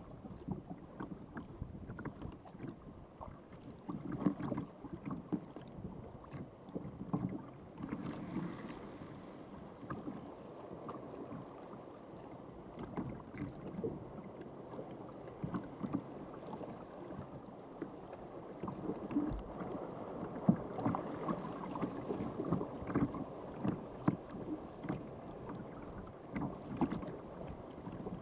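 Water lapping and splashing around a sea kayak as it is paddled along, with many small, irregular splashes over a dull, steady wash of water.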